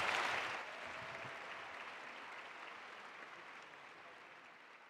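Audience applauding at the end of a speech, loudest at the start and then fading gradually away.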